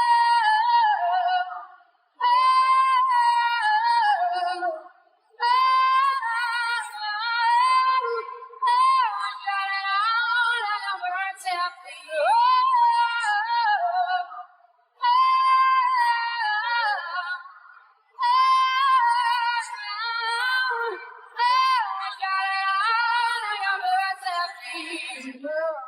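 Isolated female lead vocal from a live performance, with no accompaniment, singing wordless high notes. Held tones and melismatic runs come in phrases of about three seconds, separated by short breaths.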